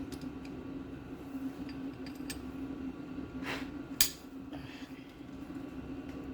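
Light metallic clicks and clinks of hand tools, including a Torx T30 bit, on the engine's rear main seal housing, with a sharp click about four seconds in. A steady low hum runs underneath.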